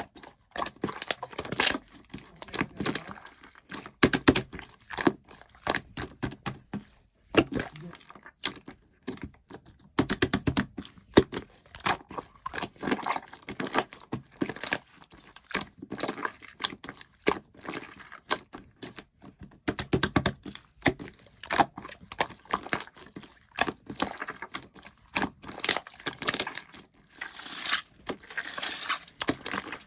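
Slime being squished, pressed and stretched by hand, giving dense crackling and popping clicks in spells with short pauses.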